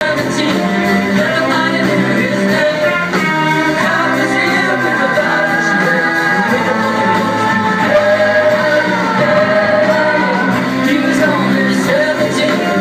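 Live band playing with electric guitar and sung vocals, heard from the audience in a small venue; the voice holds long notes that bend in pitch.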